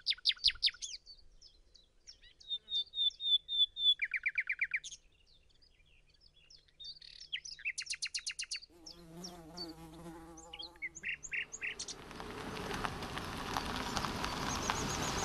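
Several birds chirping and trilling in short, separate phrases. Near the end a low wavering tone sounds for about two seconds, and then the rising noise of a car drawing near.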